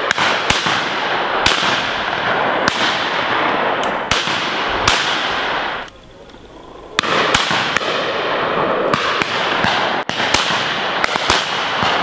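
Shotguns firing in quick succession along a line of guns at a driven game shoot, about a dozen shots, with echoes rolling through the woods between them. There is a short lull about six seconds in before the shooting picks up again.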